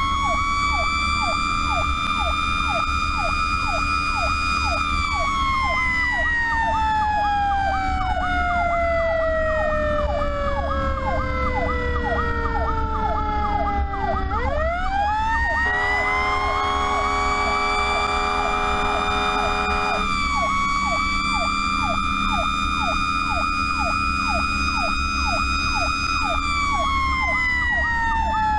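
Fire truck sirens on an emergency run, heard from the truck itself. A mechanical siren holds a high wail, coasts slowly down in pitch, then winds quickly back up, over an electronic siren in a fast yelp of about three sweeps a second. A chord-like air horn blast of about four seconds comes midway, and a diesel engine rumbles beneath throughout.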